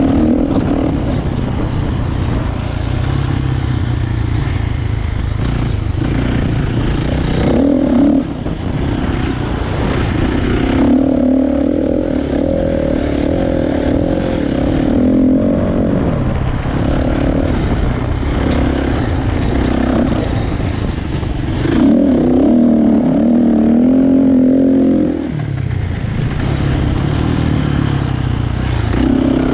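Kawasaki dirt bike engine running as it is ridden, its pitch rising and falling with the throttle, louder for a few seconds near the end.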